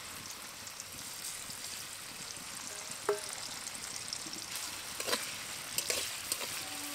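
Turmeric-marinated prawns sizzling steadily as they fry in hot oil in a metal kadai. Near the end a metal spatula stirs them, with a few clicks against the pan.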